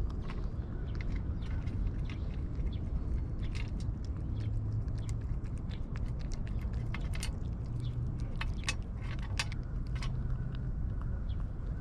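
Cats eating food, with irregular chewing clicks over a steady low rumble of background noise.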